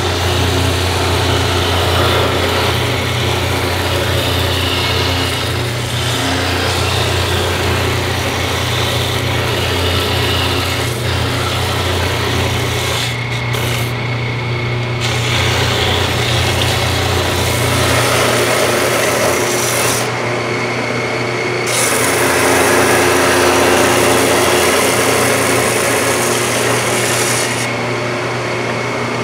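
Laguna 6/12 combination belt/disc sander running with a steady motor hum while the corner of a laminated wood board is sanded against the abrasive, giving a continuous gritty rasp. The rasp drops away briefly about three times while the motor keeps running.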